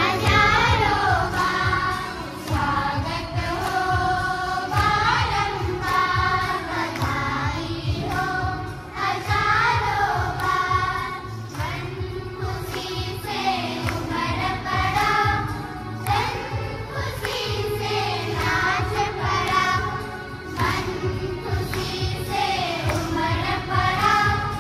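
A large group of children singing a hymn together in phrases that rise and fall, over a steady low beat.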